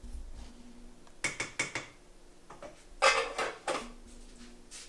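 Dishes and cutlery clinking and clattering in two bunches of quick knocks, the second one louder.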